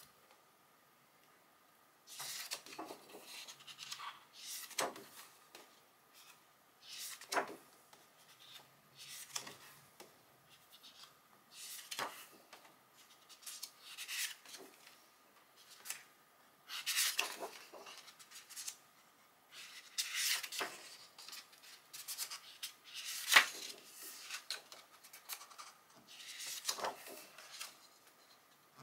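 Pages of a hardcover photobook turned by hand, about once every two to three seconds after a quiet first two seconds. Each turn brings a rustle and slide of heavy paper and a sharp flick as the page falls.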